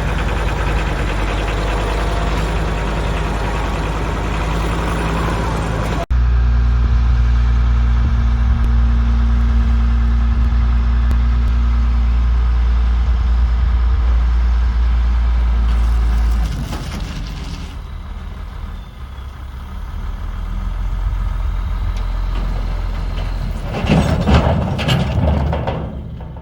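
A heavy vehicle engine running steadily. About six seconds in the sound jumps to a louder, deeper hum that lasts about ten seconds, then drops quieter, with a rough louder burst near the end.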